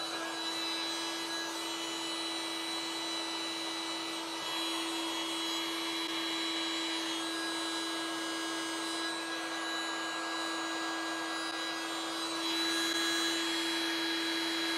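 Hot air gun running steadily: a rush of blown air with a steady motor hum under it.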